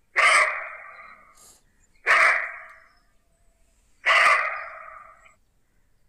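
Roe deer barking: three loud, gruff, dog-like barks about two seconds apart, each cutting in sharply and fading away.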